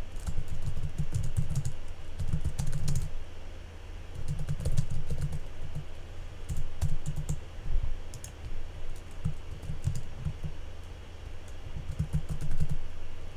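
Typing on a computer keyboard: irregular runs of keystroke clicks broken by short pauses.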